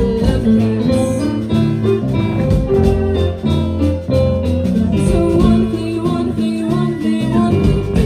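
A live rock band playing, with young girls singing over electric guitar, bass, keyboard and drums.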